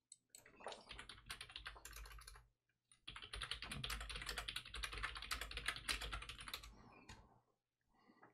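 Typing on a computer keyboard: two quick runs of key clicks with a short pause between, the second run longer.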